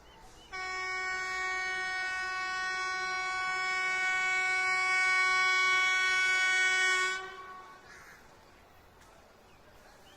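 Twin-tone air horn of a WAP1 electric locomotive sounding one long steady blast of about six and a half seconds, which starts abruptly and cuts off cleanly.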